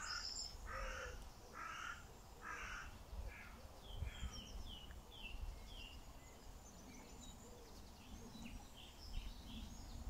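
A crow cawing, faint: a series of about five harsh caws under a second apart, then a small bird's short, high chirps.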